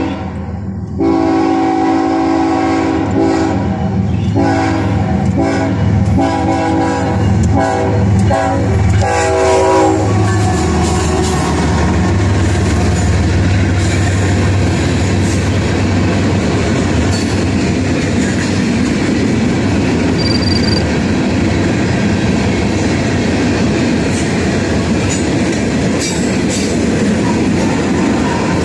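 ES44AC diesel locomotive sounding its horn in several blasts, one long and then a few shorter, over the first ten seconds as it approaches. It then passes, and its engine and the freight cars behind it run by steadily on the rails.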